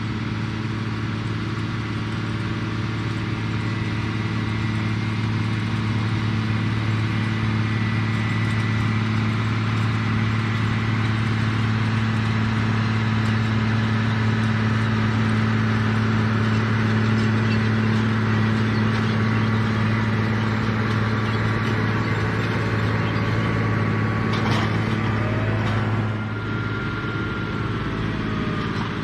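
Case IH 7120 tractor's six-cylinder diesel engine running steadily under load while pulling a corn planter. Near the end the engine note changes and it gets a little quieter, with a faint gliding whine.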